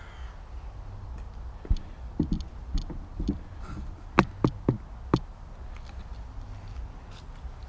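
A run of dull knocks, then four sharp clicks a fraction of a second apart, over a steady low rumble: hands working parts and tools.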